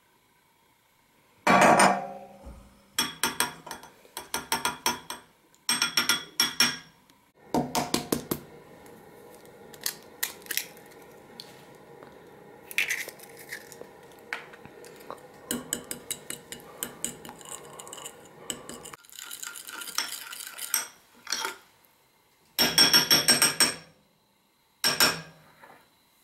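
A metal fork and measuring spoon clinking and scraping against a glass mixing bowl while cake batter is stirred, in groups of quick taps with a longer fast run of clinks near the end.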